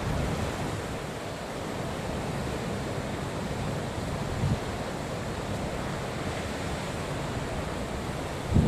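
Steady rush of wind and choppy sea waves, with wind buffeting the microphone in brief low thumps about halfway through and again near the end.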